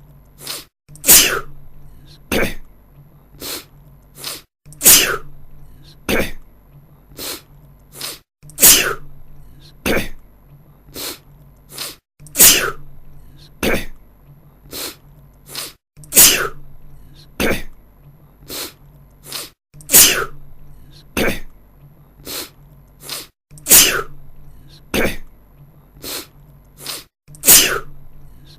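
A man sneezing over and over: eight loud sneezes about every four seconds, with shorter, quieter bursts between them. The same sequence repeats as a loop.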